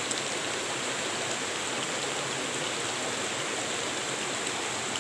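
Shallow rocky stream flowing steadily over and between stones, an even rushing of water.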